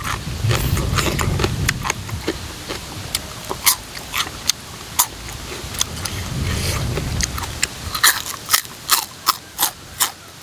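Close-up eating sounds of a person chewing a mouthful of papaya salad, with many wet mouth clicks and smacks.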